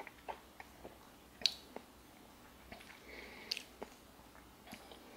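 Faint mouth clicks and lip smacks from someone tasting a sip of whisky, working it around the mouth, with a sharper click about a second and a half in.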